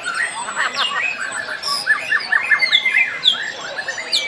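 White-rumped shamas (murai batu) in song: a dense, continuous tangle of overlapping whistles, rapid trills and repeated chips.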